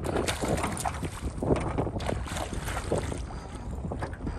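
A hooked fish thrashing and splashing at the surface beside a small aluminum boat as it is reeled in, the splashes thickest in the first three seconds. Wind rumbles on the microphone underneath.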